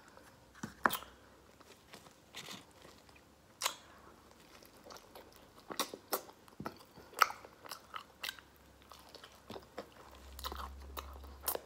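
A person biting into and chewing a cheese-sauce-soaked Italian beef sandwich, close to the microphone: a string of short, sharp wet mouth clicks and smacks.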